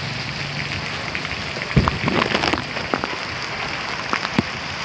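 Heavy rain pouring steadily, with scattered sharp ticks, a cluster of them about two seconds in.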